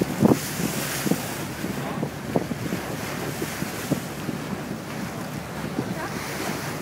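Wind buffeting the microphone on a moving boat, over the wash of harbour water, with irregular low thumps throughout.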